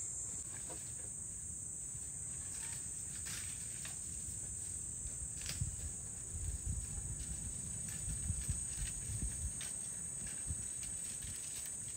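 Steady high-pitched insect chorus, with irregular low rumbles and knocks from about halfway through.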